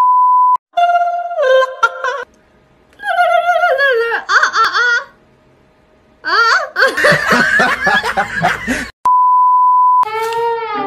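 Steady 1 kHz test-tone beep, the kind played with TV colour bars. It sounds for about half a second at the start and again for about a second near the end. Between the two beeps come high, wavering voice sounds with brief silent gaps.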